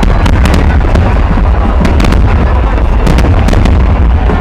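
Large fireworks display: a dense run of sharp bangs and crackles, several a second, over a continuous low rumble of aerial shells bursting.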